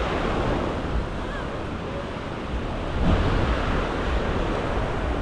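Sea waves washing onto a sandy beach, with wind buffeting the microphone; a louder surge of surf about three seconds in.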